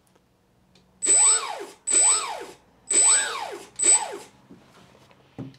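The RC plane's electric motor blipped four times with no propeller fitted, only a strip of tape on the shaft to show which way it turns. Each blip is a short whine that rises and then falls in pitch as the motor spins up and winds down, with a thin high whistle at its start.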